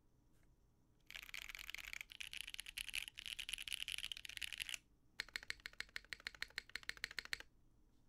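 Mechanical keyboard typing on a Midway 60 with lubed L&F Holy Panda tactile switches, a polycarbonate plate and GMK keycaps. Fast, busy typing for nearly four seconds, then after a short pause a quicker, evenly spaced run of key strikes for about two seconds.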